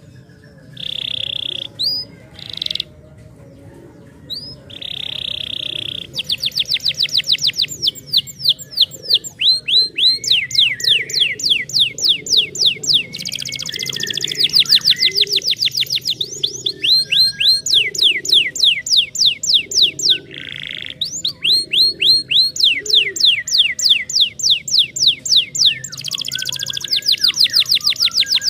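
Canary singing: a few short steady trills at first, then from about six seconds in long runs of rapid falling notes, phrase after phrase with brief pauses between.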